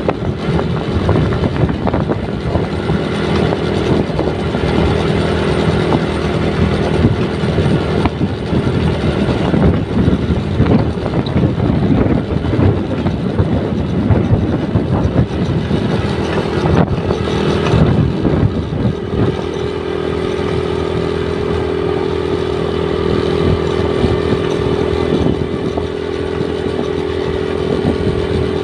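Motorcycle engine running steadily at road speed, with wind rushing over the microphone. About two-thirds of the way through the rushing eases and the engine note holds at a more even pitch.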